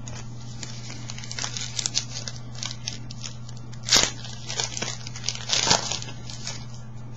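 Foil wrapper of a baseball card pack being torn open and crinkled: a run of crackles and rips, loudest about four seconds in and again near six seconds.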